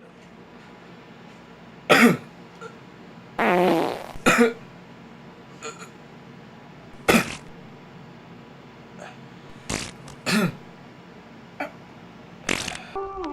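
A person coughing, each cough paired with a fart noise: about seven short bursts spaced a second or more apart, one longer fart with a falling pitch about three and a half seconds in.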